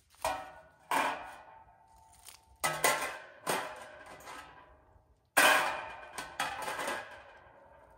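A metal wire grill grate clanking against a metal fire-pit bowl as it is set down and shifted into place: a string of about eight sharp clanks, each ringing briefly. The loudest comes a little over five seconds in.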